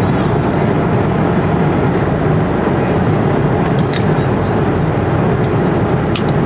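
Steady, loud roar of a jet airliner cabin, with a couple of faint clicks.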